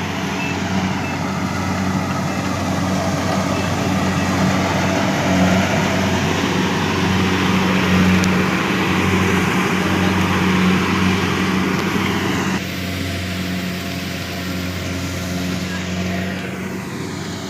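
Engine of heavy harvest machinery running steadily with a constant low hum and a wide mechanical noise over it. About twelve and a half seconds in, the sound drops suddenly to a lower level and carries on.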